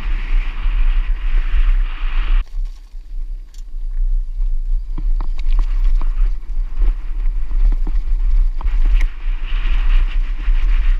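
Mountain bike riding downhill over rough ground: wind rushing and rumbling on the microphone, with many sharp clattering knocks from the bike over the terrain. The wind hiss falls away suddenly about two and a half seconds in and builds again near the end.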